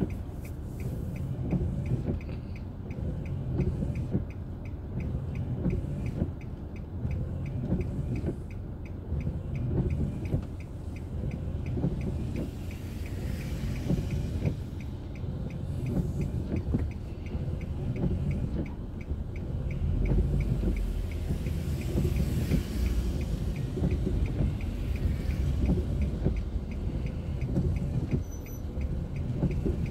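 Car driving on a city road, heard through a dashboard camera: a low rumble of engine and tyres, with a faint, regular ticking. The rumble grows louder about two-thirds of the way in.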